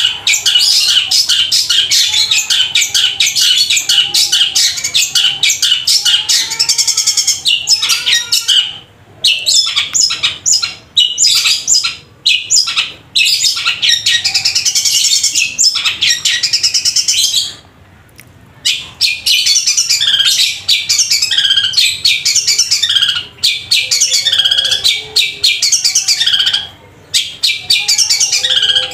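Caged long-tailed shrike (cendet) singing loudly and almost without break: a rapid stream of chirps and chatter in which it mimics Eurasian tree sparrow calls. There are short pauses about nine to thirteen seconds in and a longer pause around eighteen seconds in.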